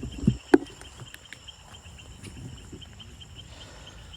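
Steady, high-pitched chorus of night insects, with two sharp knocks about half a second in.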